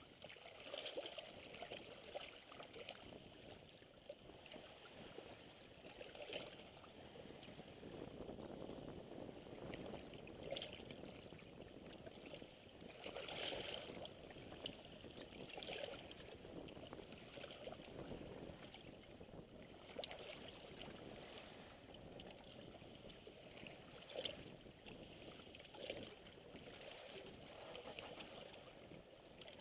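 Faint sea waves lapping and splashing against shoreline rocks, swelling and ebbing in irregular washes.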